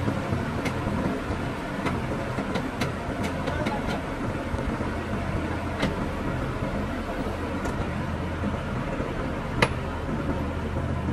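New Holland 8080 combine harvester's diesel engine running with a steady low drone, with scattered metallic clicks and one sharp clack about nine and a half seconds in.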